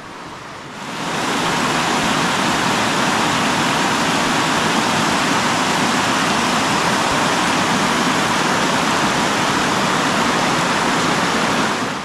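Waterfall: a steady rush of falling water that swells in about a second in and stops abruptly just before the end.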